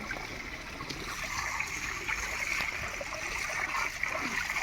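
Water splashing and trickling in a shallow pond, a steady watery hiss with small splashes.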